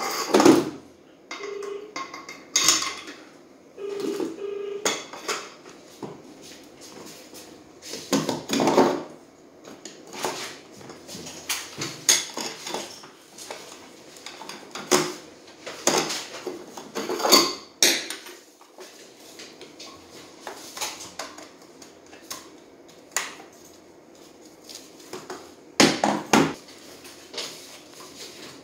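Irregular clinks, taps and knocks of hand tools, screws and metal and plastic parts being handled while a toy ride-on motorbike's wheel and hub are fitted by hand.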